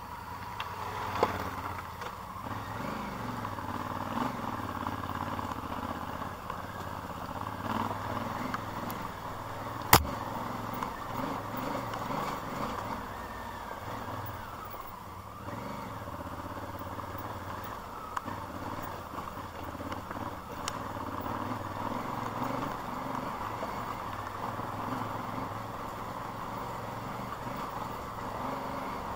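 A vehicle's engine running as it drives a rough off-road track. Two sharp knocks come through, a small one about a second in and a loud one about ten seconds in.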